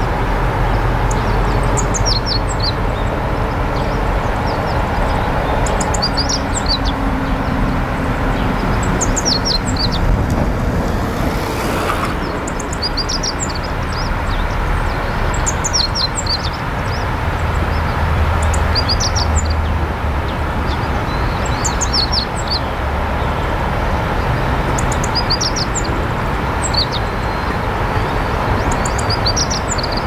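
A small bird repeating short groups of high, downward-sliding call notes every two to three seconds, over a steady loud rushing noise.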